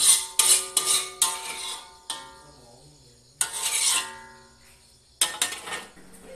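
Metal spatula scraping and clanging against a steel wok, the wok ringing after each stroke: a quick run of strokes, one more, a longer scrape in the middle, then two more strokes near the end.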